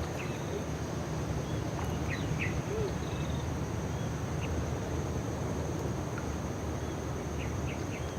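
Outdoor ambience: a steady high-pitched insect drone, with short bird chirps scattered through it over a low steady rumble.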